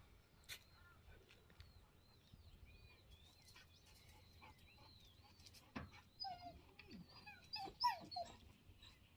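A dog whimpering and whining in short squeaky cries, faint at first and clustering louder in the second half.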